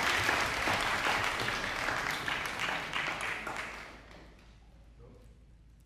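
Applause from the audience and players, dying away about four seconds in.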